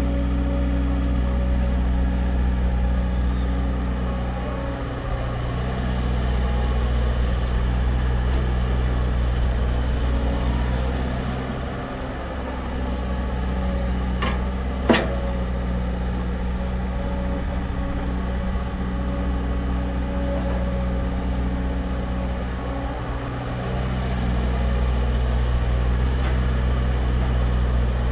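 Heavy construction machine's diesel engine running steadily, its level easing and rising a few times as the load changes, with one sharp knock about halfway through.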